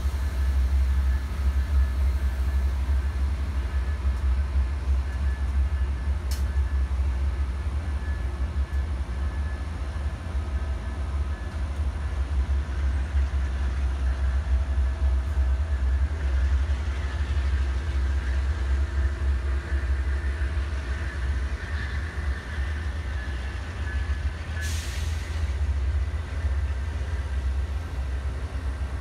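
Amtrak Superliner passenger cars rolling slowly past, a steady low rumble with faint squealing tones from the wheels. A short hiss comes about 25 seconds in.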